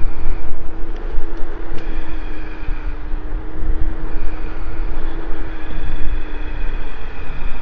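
Trittbrett Sultan Plus e-scooter's electric motor whining at a steady pitch while riding, the pitch sinking slightly near the end, with wind rumbling on the microphone.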